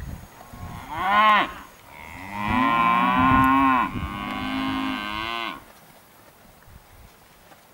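Freshly weaned Angus calves bawling: one short moo about a second in, then a long, drawn-out moo lasting over three seconds, the calling of calves just taken off their mothers.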